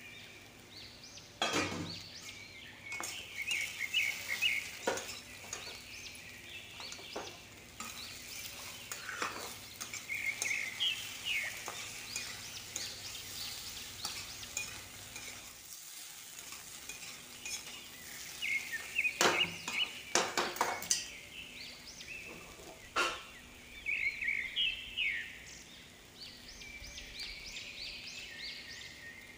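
Sliced spiny gourd (kakora) frying in a kadhai with a light sizzle, stirred with a spatula that scrapes and knocks against the pan every few seconds. Birds chirp in the background.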